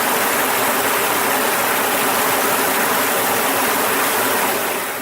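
Steady, loud rushing hiss with no clear pitch, fading out near the end.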